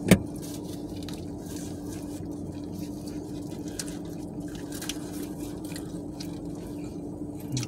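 People biting into and chewing fried chicken sandwiches, with small clicks and crinkles from the paper wrappers, over a steady low hum inside a car. A single sharp knock right at the start is the loudest sound.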